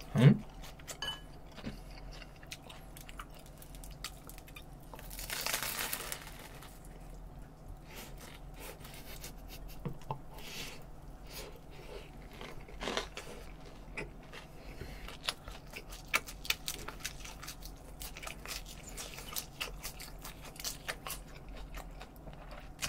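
A man eating ciabatta bread topped with lettuce and sauced fried chicken, close to the microphone: soft chewing with many small crunchy clicks throughout. A brief voiced hum comes right at the start, and a short breathy rush of noise about five to six seconds in.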